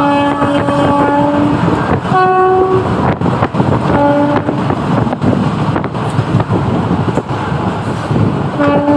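Indian Railways locomotive horn giving several blasts over the steady rumble and clatter of a moving train: a long blast at first, a shorter higher-pitched one about two seconds in, a short one about four seconds in, and another short one near the end.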